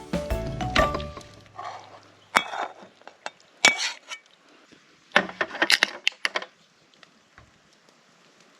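Background music ends about a second in. Then come metal utensils clinking against cookware and dishes: a couple of single clinks, then a quick run of clinks about five to six seconds in.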